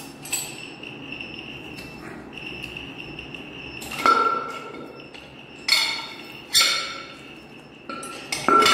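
Sharp metal clinks and knocks, each with a short ring, as the steel top cover of a QSA Global NE4C source container is set down and pressed into place: about five strikes spread out over several seconds.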